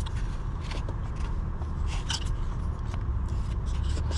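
Scattered small scrapes and clicks of a wire-piercing probe and fingers working at engine wiring, over a steady low hum.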